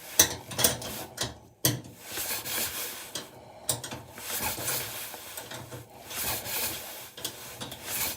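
Irregular rubbing and scraping with scattered sharp clicks, broken by two short quieter gaps.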